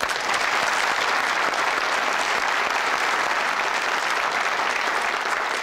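Studio audience applauding steadily, a dense even clapping.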